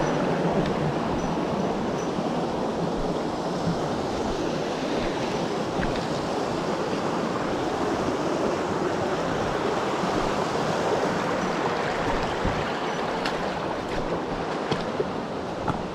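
Mountain stream water rushing steadily over rocks. A few small clicks sound near the end.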